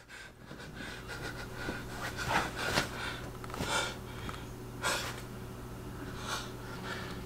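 A man breathing heavily, a series of short sharp breaths a second or so apart, over a faint steady hum of room tone.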